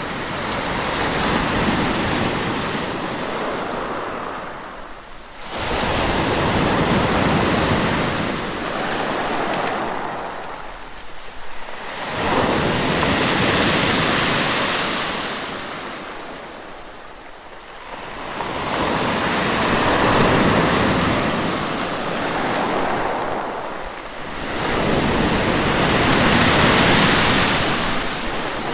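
Sea waves breaking on a shore, one wave about every six seconds, each rushing in and then fading back.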